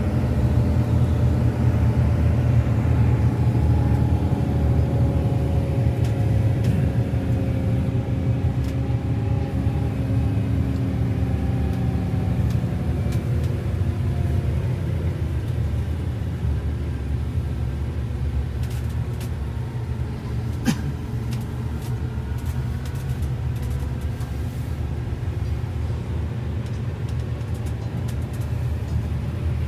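Inside a coach bus under way: steady engine and road rumble, with a faint hum that slowly drops in pitch over the first dozen seconds. A single sharp click comes about two-thirds of the way in.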